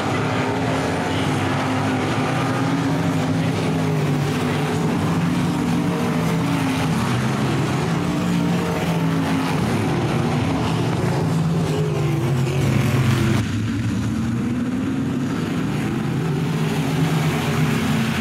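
Dirt-track race car engines running at speed on the track, their pitch rising and falling as the cars go around. The sound changes abruptly about thirteen seconds in.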